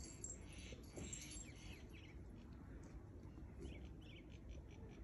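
Faint, high bird chirps and twitters over quiet room noise.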